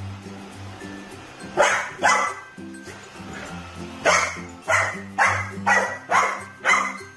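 Golden retriever puppy barking at a robot vacuum cleaner: two high, sharp barks, then after a short pause a run of six more about half a second apart. Background music plays throughout.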